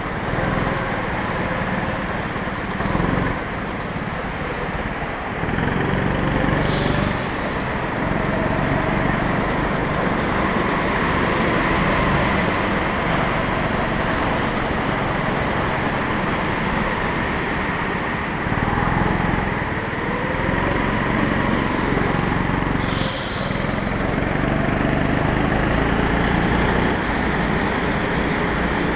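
Go-kart engine heard from on board, running hard through a lap. Its pitch drops and climbs again several times as the kart slows for corners and accelerates out.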